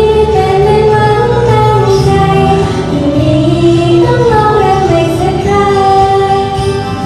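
A young woman singing a slow Thai pop song into a handheld microphone, in long held notes that glide between pitches.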